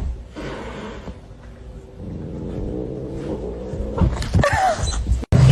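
A pet animal vocalising: a drawn-out low, grumbling sound, then a short wavering, yowling call about four seconds in.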